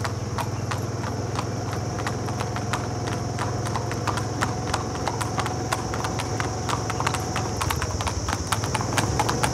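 Hooves of two Marwari horses clip-clopping on an asphalt road: a quick, uneven patter of strikes from the two animals moving together. A steady low hum runs underneath.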